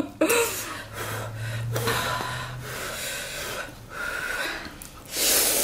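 Eating noises from two people working through spicy instant noodles: slurping and sniffing in short noisy bursts, with a longer, louder slurp near the end.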